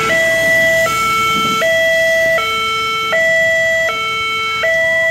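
Railway level-crossing warning alarm sounding a loud electronic two-tone hi-lo signal. It switches between a higher and a lower tone about every three-quarters of a second, warning road traffic of the train at the crossing.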